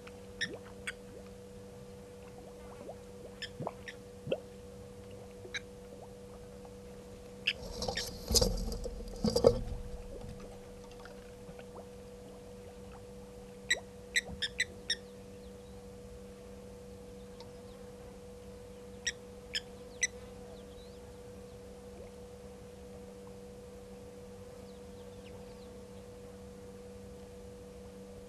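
Outdoor ambience with a steady electrical hum, scattered short high chirps, and a louder rough rush of noise lasting about two seconds, around eight seconds in.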